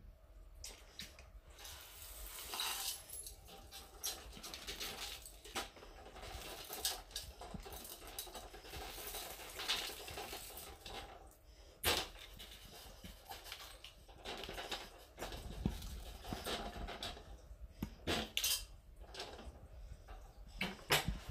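A vacuum cleaner's dust bin being emptied onto carpet: plastic beads, sequins, coins and gritty debris rustling and clinking as they spill out, with a few sharp clicks, several of them near the end.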